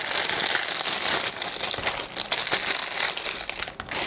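Clear plastic bag of small paint-by-numbers paint pots crinkling and crackling as it is opened and the pots are pulled out, with many small sharp crackles.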